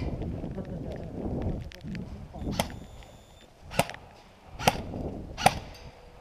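Low rumbling noise, then four single sharp cracks roughly a second apart, shots from an airsoft gun.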